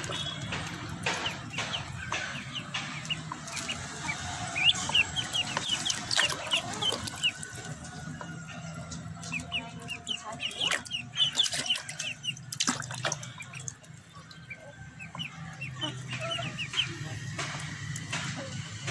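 Ducklings peeping in clusters of short, high, rising chirps as they paddle and splash in a tub of water, over a steady low hum.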